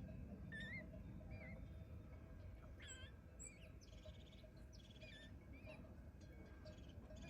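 Faint birdsong: several small birds giving short whistled calls and quick trills, over a low steady rumble.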